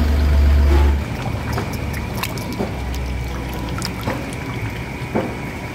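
Mutton masala sizzling and bubbling in a large biryani deksha as it is stirred with a long iron rod, with scattered knocks and scrapes of metal against the pot. A deep low rumble fills the first second.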